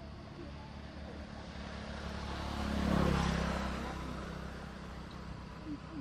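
A motor vehicle driving past: its engine and tyre noise swell to a peak about halfway through, then fade away.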